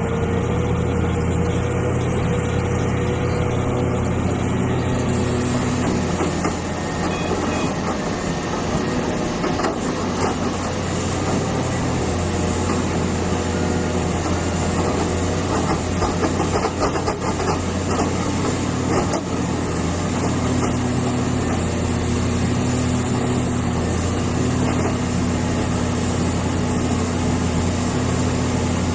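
Hitachi EX450 excavator's diesel engine running steadily with a whine over the low drone. Scattered knocks and clatter come through the middle of the stretch.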